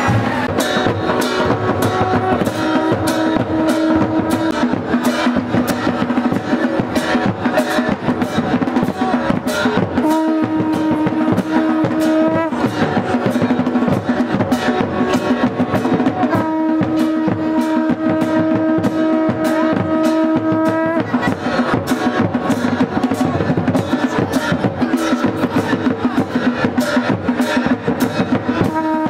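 Procession drums beating a fast, steady rhythm of about four strokes a second. Twice a long held note sounds over the drumming: briefly about ten seconds in, and for about four seconds in the middle.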